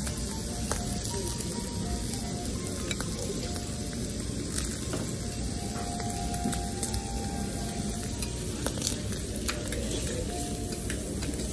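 Food sizzling steadily on a teppanyaki iron griddle, with occasional light clicks.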